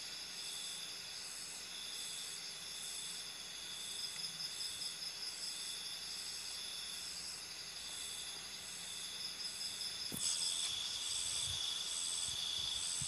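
A chorus of night insects trilling steadily at several high pitches, some in rapid pulses. A single knock sounds about ten seconds in, and the trilling is louder after it.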